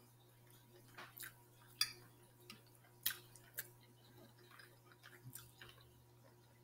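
Quiet eating sounds: a person chewing smothered chicken, with scattered sharp clicks and taps as a fork works at a glass plate, the loudest a little under two seconds and about three seconds in.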